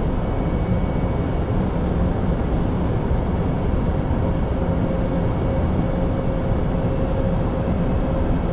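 Steady flight-deck noise of an Airbus A320neo in flight: an even rush of air with a faint steady whine.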